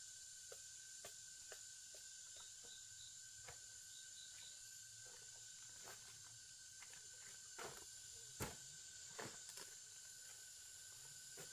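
Faint forest background: a steady, high insect trilling over a light hiss, with scattered light clicks and snaps. The loudest few snaps come about eight to nine seconds in.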